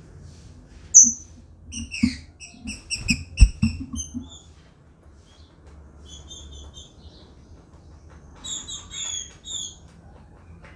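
Caged female green-winged saltator (trinca-ferro) calling: one sharp, high call about a second in, then a quick run of short high notes with soft thumps among them, and two softer groups of short notes later. These are the female's calls while she quivers her wings, soliciting mating.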